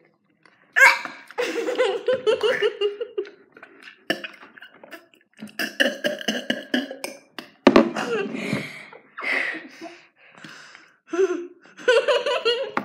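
Two girls laughing and giggling through closed mouths, in short bursts, with a spit into a glass partway through.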